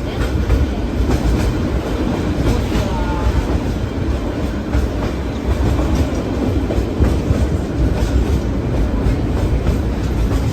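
Meter-gauge train running along the track: a steady low rumble with the wheels clattering over rail joints.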